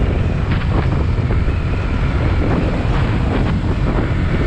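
Wind rushing over an action camera's microphone on a cruising Bajaj Pulsar NS200 motorcycle, with the engine and tyres droning steadily underneath.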